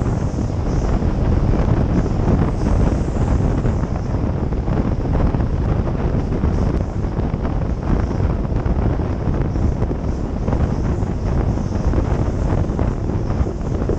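Steady wind buffeting on the microphone of a camera mounted outside a moving passenger train, over the low rumble of the train running along the track.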